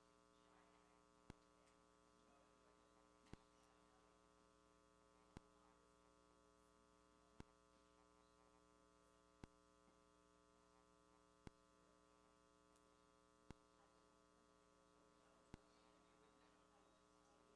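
Near silence: a faint steady electrical hum, with a short click about every two seconds.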